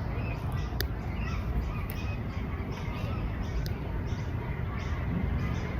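Birds calling and squawking over a steady low rumble, with a couple of sharp clicks.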